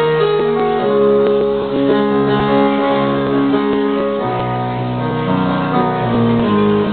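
Live instrumental music with no singing: held keyboard chords that change about every second.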